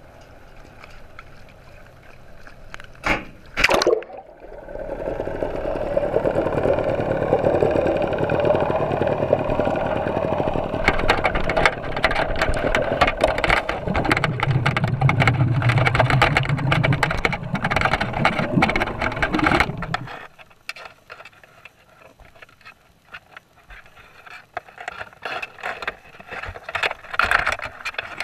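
Camera-mounted crab net plunging into the sea with a splash a few seconds in, then muffled underwater noise: a loud steady rumble and hiss full of clicks that cuts off suddenly about two-thirds of the way through, followed by quieter scattered clicks and scratches.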